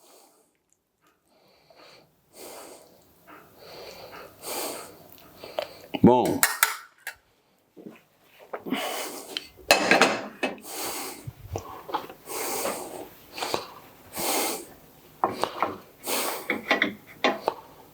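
A spoon scraping and clinking against dishes as macaroni and cheese is scooped out and spread onto a plate, in a run of short scrapes and knocks.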